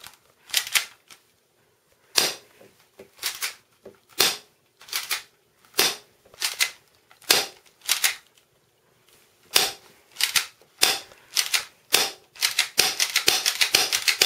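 Spring-powered airsoft pistol (a Beretta-style spring gun) being cocked and fired over and over: about a dozen sharp plastic clacks, roughly one a second or faster. Near the end they turn into a rapid clatter of clicks and rattles.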